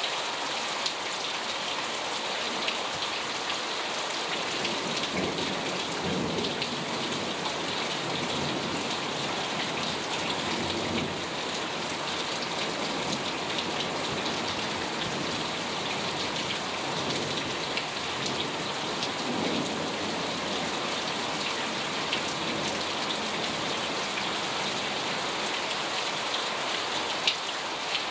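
Heavy rain falling steadily, splashing on parked cars and pavement, with a few soft low rumbles of thunder.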